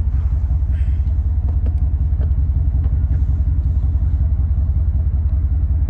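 Pickup truck engine idling: a steady low rumble, with a few faint clicks over it.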